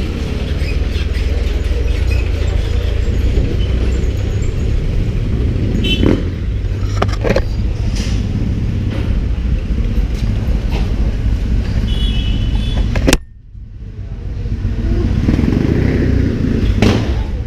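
Motorcycle engine idling with a steady low rumble, a few sharp clicks over it. The sound drops away abruptly about thirteen seconds in, then the rumble builds back up.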